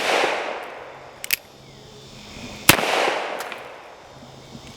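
Single-action Uberti Cattleman revolver firing .45 Colt cowboy loads: a shot right at the start rolls away in a long echo, a couple of short sharp clicks follow about a second in, then a second shot at under three seconds in also rolls off slowly.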